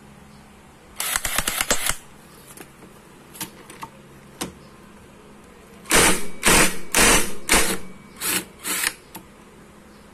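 DeWalt cordless impact wrench hammering on a scooter's magneto flywheel nut through a 17 mm socket, breaking the nut loose: one short run about a second in, then a string of six short bursts between about six and nine seconds.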